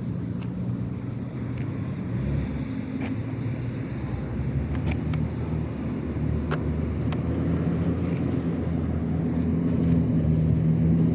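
Strong, gusty wind rumbling on the microphone, with a steady low hum underneath and a few faint ticks.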